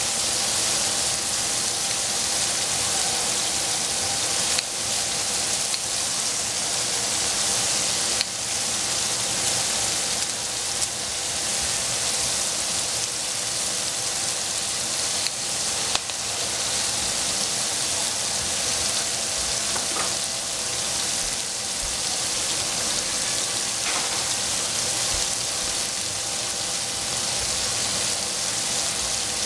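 Sliced capsicum frying in a pan: a steady high sizzle, broken a few times by sharp clicks.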